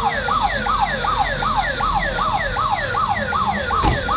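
Electronic siren yelping: a fast rising-and-falling tone repeating about three times a second, with a single thump near the end.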